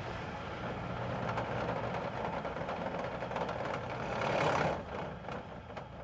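Ambulance driving by: engine and road noise swell to a peak about four and a half seconds in, then drop away and fade out.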